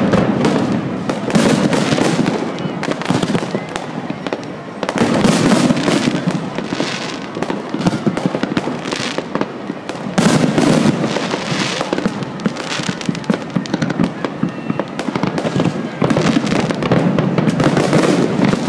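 Fireworks bursting in dense crackling volleys that surge again about every five seconds.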